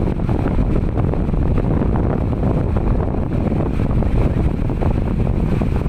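Farm baler running: a loud, steady mechanical rumble with fast, irregular rattling, heavy in the low end.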